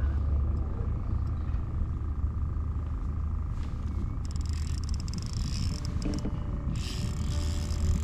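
A fishing reel's drag buzzing in two runs, starting about halfway in and again near the end, as a hooked fish pulls line against a hard-bent rod. Under it runs a steady low rumble with a thin steady whine.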